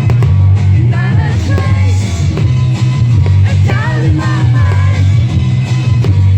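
Loud song with a singer over a heavy, steady bass line.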